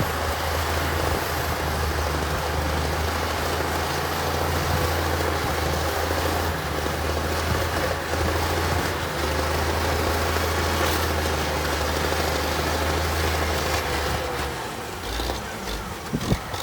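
Heavy construction machine's diesel engine running steadily with a low drone; the sound changes near the end, with a few short knocks.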